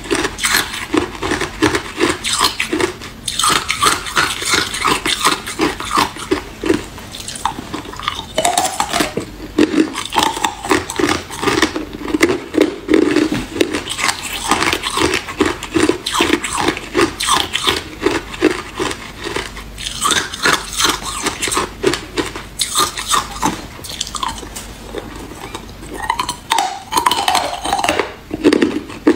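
Hard clear ice cubes being bitten and chewed: a continuous run of rapid, sharp crunches and cracks.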